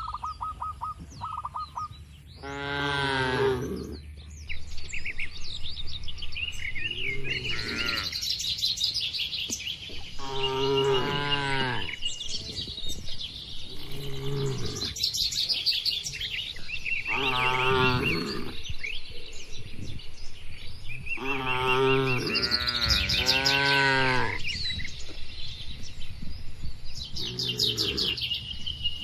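Cattle mooing repeatedly, about seven drawn-out calls a few seconds apart, some wavering in pitch. Birds chirp and whistle throughout.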